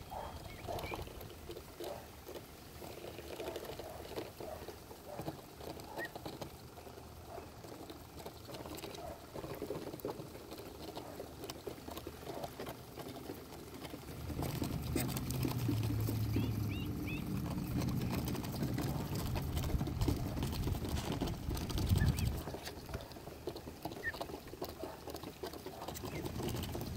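Mallard ducklings pecking birdseed off wooden dock boards: a scattered patter of small beak taps on the wood, with a few faint peeps. About halfway through, a low steady hum comes in underneath.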